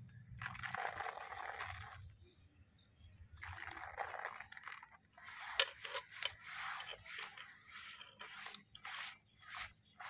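Hands pressing and smoothing a wet banana leaf flat: faint crinkling, scraping rustles, one stretch near the start, then a run of quick separate strokes from about three seconds on.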